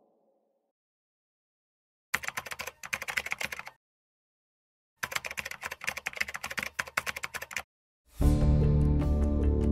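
Keyboard typing sound effect: two bursts of rapid clicks with a pause between them. Background music comes in near the end.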